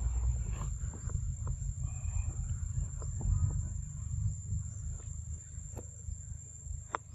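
Forest ambience: a steady high-pitched insect drone over a low rumble of wind on the microphone, with scattered small clicks and rustles.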